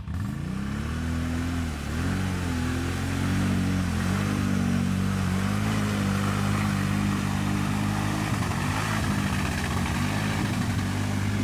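Loncin X-Wolf 1000 ATV's 1000 cc engine pulling under throttle: the revs climb at the start and rise and fall over the first few seconds, then hold fairly steady with a brief dip near the end.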